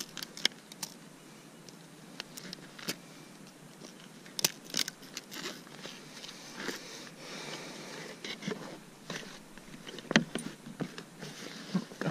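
Handling noise in a kayak: irregular clicks, knocks and rustles of pliers, landing-net mesh and a vinyl measuring mat as a bass is unhooked and laid on the mat. A few sharper knocks stand out, the loudest about four and a half and ten seconds in.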